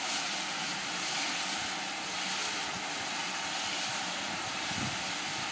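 Steady loud rushing of water pouring from a water column's hose into a Small Prairie tank steam locomotive's water tank as it takes on water.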